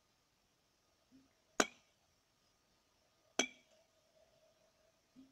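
A rubber mallet strikes the mouth of a small water-filled glass bottle twice, about two seconds apart. Each blow is a sharp clink with a short glassy ring, the hammer blow meant to send a pressure pulse through the water and knock out the bottle's bottom.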